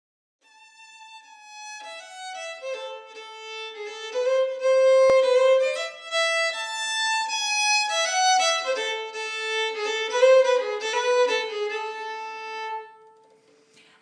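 Solo violin playing a melody, with a lower note held under parts of it; it fades out near the end.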